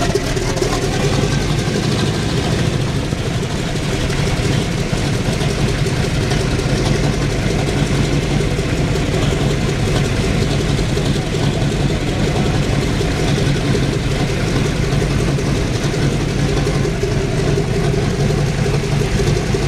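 Boeing B-17 bomber's Wright R-1820 nine-cylinder radial engines running at a steady idle just after startup.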